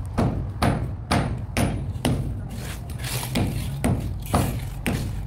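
A steady series of sharp knocks, about two a second, over a low steady hum.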